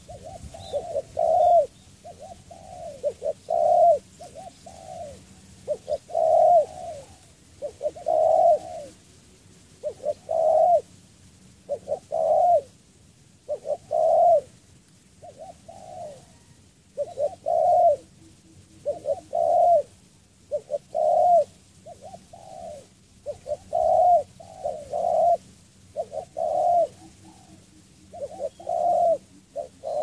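Spotted dove cooing: short, repeated, rolling coo phrases, roughly one every one to two seconds, with brief pauses between them.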